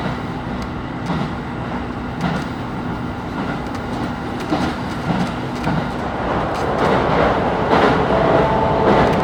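KiHa 25 diesel railcar running, heard from inside the carriage: a steady rumble with the wheels clicking over rail joints. It gets louder over the last couple of seconds, when faint high steady tones come in.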